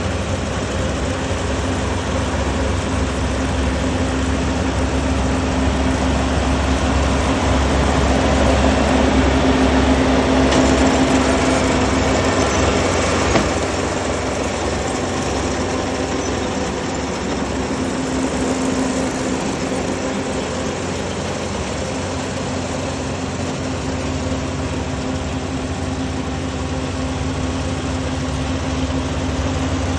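Rice combine harvester's engine running steadily under load with a constant low drone and hum. It gets slightly louder for a few seconds mid-way, and there is a single sharp knock about 13 seconds in.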